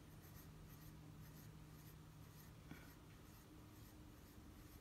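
Faint scratching of a pencil on paper in short, repeated strokes as small ovals are drawn, over a low room hum, with one small tick about two-thirds through.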